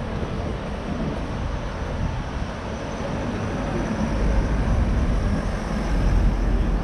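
Street traffic, with a van driving past close by; its low engine and tyre rumble builds about halfway through and is loudest near the end.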